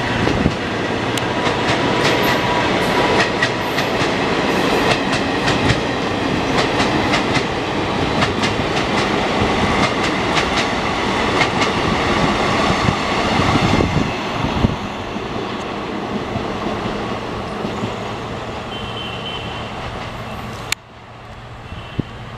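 Coaches of a diesel-hauled express train rolling past, their wheels clicking rhythmically over the rail joints; the rolling noise fades from about 14 s in as the train moves away, and cuts off suddenly near the end to a quieter background.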